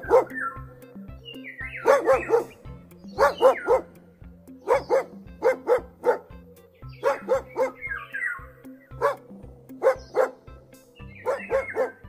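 A dog barking repeatedly, mostly in quick runs of two or three barks, with a short falling whine about eight seconds in. Background music with a steady beat plays underneath.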